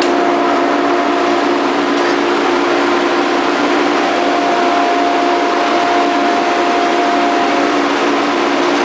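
Grizzly G0544 thickness planer running steadily while planing a red oak board. It gives a steady machine drone with a higher tone that stops about eight seconds in.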